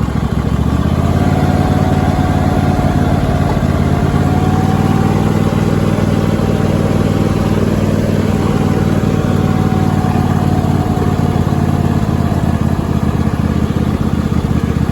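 Cub Cadet lawn tractor's swapped-in 26 hp Briggs & Stratton V-twin engine running steadily as the tractor is driven. A thin, steady whine rides over it from about a second in until near the end.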